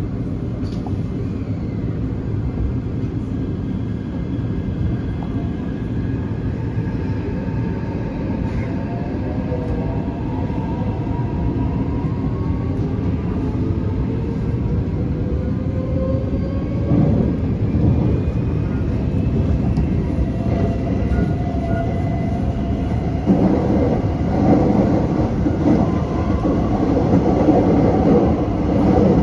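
Inside a Taipei Metro train car as it pulls away: the traction motors give several whining tones that rise in pitch as the train accelerates, over a steady rumble of the wheels on the track. The rumble grows louder and rougher in the last several seconds.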